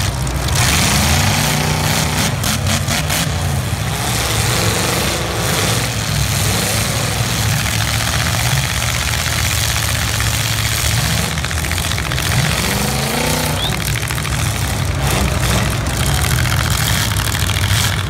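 Demolition derby cars' engines running hard, revving up and down in pitch as the cars push and grind against each other, with a few sharp knocks in the first few seconds.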